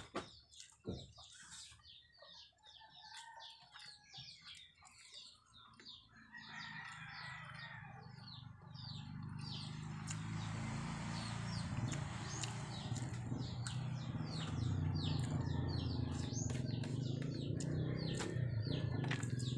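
Small birds chirping over and over in quick, short falling notes. From about six seconds in, a low, steady hum from some unseen source swells up under them and becomes the loudest sound.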